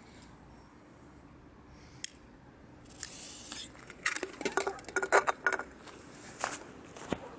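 A short hiss, then a run of sharp clinks and scrapes as an aluminium drink can with a lit firecracker in its opening is set down on a concrete slab.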